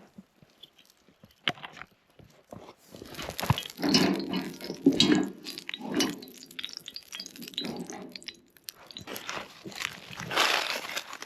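Irregular clinks and knocks of cooking gear, with rustling of food packaging being handled, louder in bursts near the middle and near the end.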